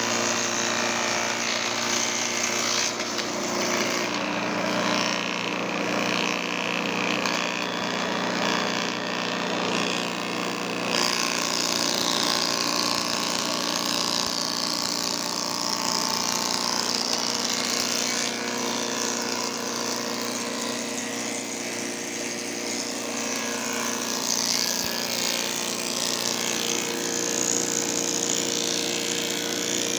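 Woodworking machine with a spinning cutter head running steadily and cutting a groove along a wooden plank, a constant machine noise over a steady motor hum.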